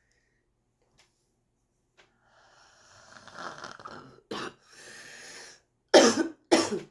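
A smoker's congested coughing: a long breath drawn in, a short cough about four seconds in, another breath, then two loud coughs near the end. The uploader guesses this is what chronic bronchitis sounds like.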